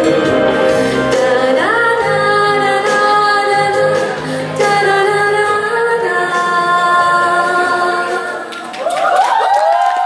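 A woman singing a Mandarin ballad into a microphone over accompaniment, in long held notes that slide up into pitch about two seconds in and again near the end, as the song closes.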